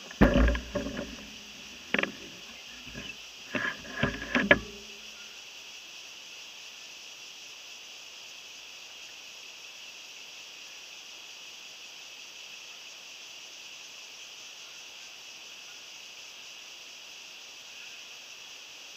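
Knocks and rattles of a bicycle being brought to a stop and parked, picked up by a dashcam clamped to its handlebar, over the first five seconds. After that there is only a steady high hiss.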